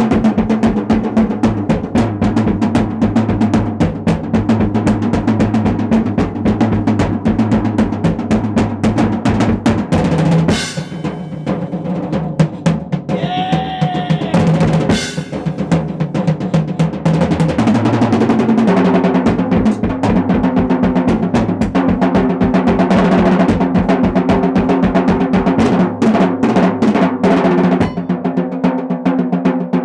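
Acoustic drum kit played in a fast solo: rapid strokes on snare, toms and bass drum. The playing thins out for several seconds in the middle, with two loud hits about ten and fifteen seconds in, then picks up again at full pace.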